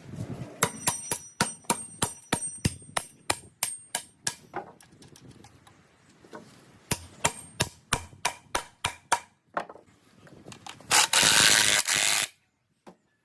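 A hammer striking nails in rapid blows, about four a second, with a high metallic ring on each hit; two runs with a short pause between. Near the end comes a loud burst of noise lasting about a second and a half.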